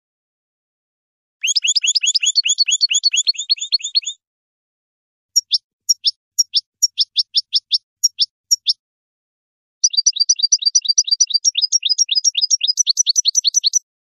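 European goldfinch singing: three runs of rapid, repeated high chirping notes, each lasting a few seconds, with clean silence between them.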